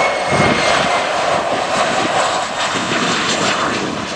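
Boeing 737-300 freighter's CFM56 turbofan engines on low final approach: a loud, steady jet rush, with a high whine that fades out near the start.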